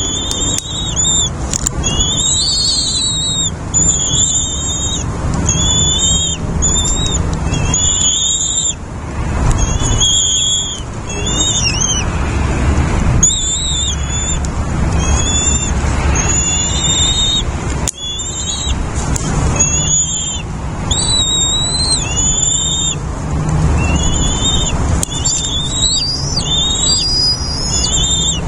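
Nestling birds calling over and over with short, high, wavering calls, roughly one or two a second, as young birds do when begging for food. A steady low rumble runs underneath.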